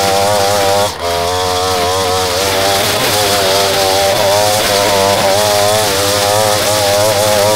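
Small two-stroke engine of a handheld lawn tool running at high revs, its pitch wavering up and down as the load changes, with a brief dip about a second in.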